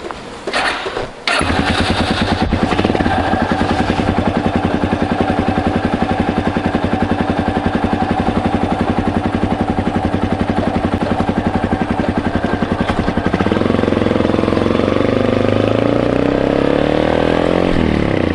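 Yamaha Serow's single-cylinder four-stroke engine catching about a second in and running with an even, steady beat; about two-thirds through its pitch rises as it is revved and pulls away.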